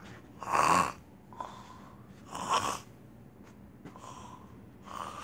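A person snoring: three breathy snores about two seconds apart, the first the loudest.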